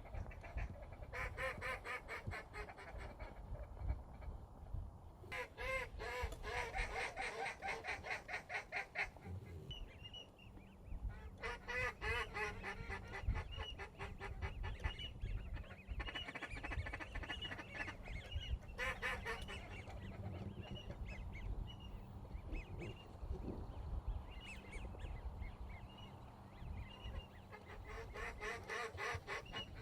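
Waterfowl calling: several bursts of rapid, repeated honking and quacking calls, with short high whistles repeated between them.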